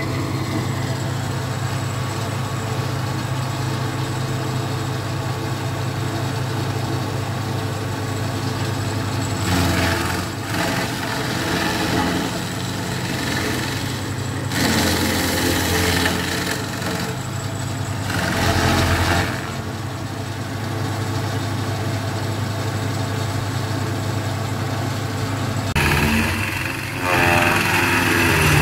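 Tracked stump grinder's engine running steadily, with four surges of harsh grinding noise a second or few long as the cutting wheel bites into a tree stump; the last surge comes near the end, with chips flying.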